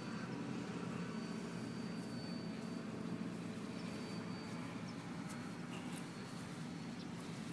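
Faint, steady drone of a distant radio-controlled autogyro's motor in flight, with a thin high whine that comes and goes.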